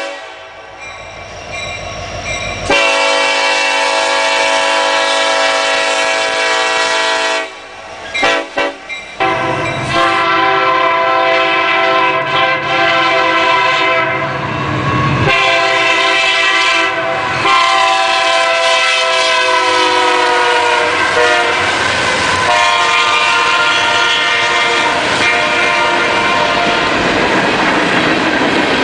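Diesel freight locomotive's air horn sounding a multi-note chord in several long blasts, breaking off briefly at about eight seconds. Toward the end the horn is mixed with the rumble and clatter of the freight cars rolling past.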